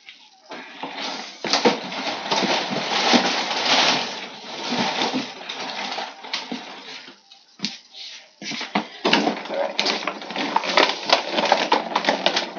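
Clear plastic packaging crinkling and crackling as it is handled, with a short lull about two thirds of the way through before more crinkling.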